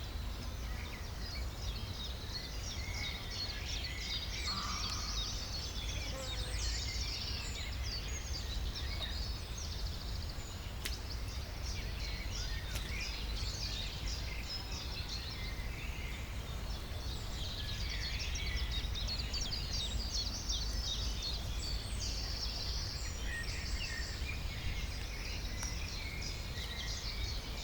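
Countryside ambience: many small birds chirping and trilling at once over a steady low rumble.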